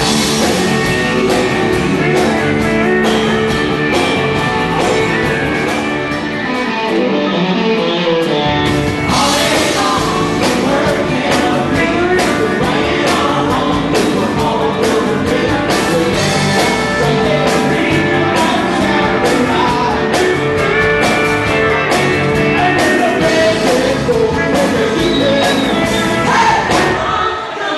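A live band playing, with a man singing lead into a microphone over guitar and keyboard. About seven seconds in, the bass end drops out for a couple of seconds, then comes back in.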